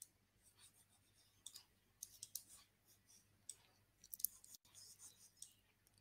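Faint, scattered light clicks and taps from pen or pointer strokes drawing on a computer whiteboard, with near silence between them.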